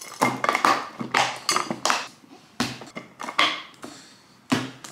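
Snap-lock lids being clicked shut on glass meal-prep containers and the containers set down and stacked on a stone worktop: a quick run of sharp plastic clicks and glassy clacks, with louder knocks about two and a half seconds in and again near the end.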